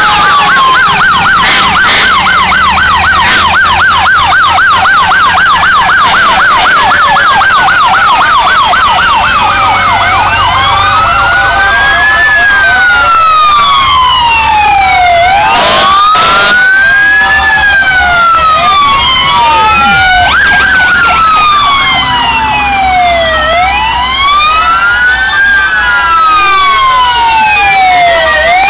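Fire engine sirens sounding together as the trucks pass. A fast yelp runs for the first several seconds, then slow wails rise and fall every few seconds, overlapping one another, over the low rumble of the truck engines.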